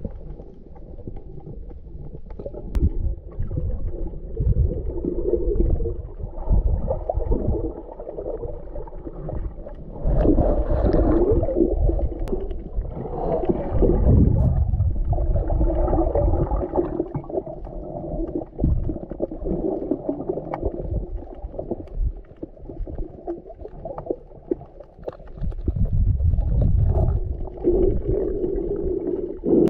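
Muffled underwater rumble and gurgling of water moving around a camera housing, swelling and fading, with a steady low hum under it.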